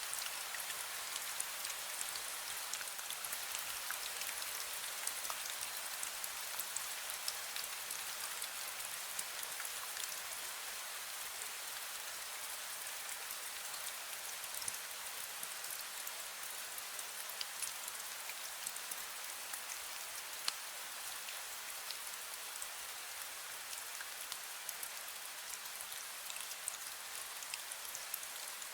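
Steady fine rain, with many small drops ticking on surfaces.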